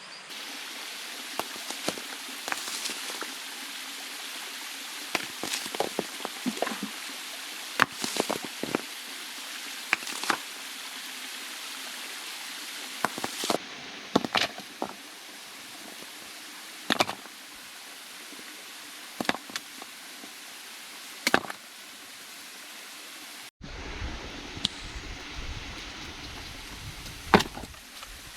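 Steady hiss of falling rain and running water, with irregular sharp taps and clicks scattered through it. The sound changes abruptly a little before the end, where a low rumble joins the hiss.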